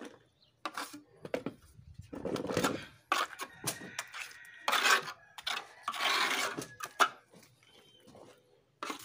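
Steel trowel scraping and spreading wet cement slurry over the concrete walls of a washtub, in a series of separate strokes with a few sharp clicks of the blade.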